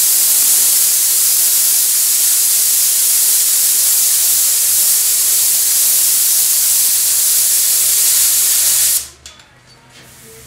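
Compressed-air blow gun blasting a steady, loud hiss of air onto a freshly heated shrink spot in a sheet-metal panel, cooling it quickly so the metal shrinks. The air cuts off suddenly about nine seconds in.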